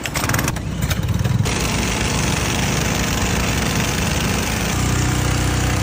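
Portable gasoline-engine water pump pull-started by its recoil cord, then running steadily from about a second and a half in, several pumps together with water spraying from their discharge hoses. A deeper engine hum grows stronger near the end.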